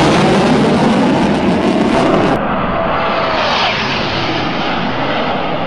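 Loud jet-engine noise of fighter jets making low passes, with the pitch sliding as they go by. About two seconds in there is an abrupt switch to a different recording of another jet's pass.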